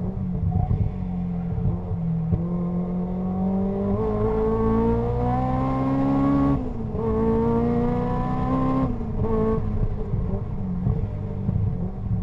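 Caterham R500's four-cylinder engine at full race throttle, heard from its open cockpit: the note climbs steadily, drops sharply with an upshift about six and a half seconds in, and climbs again until the throttle closes about nine seconds in, leaving a lower, uneven note.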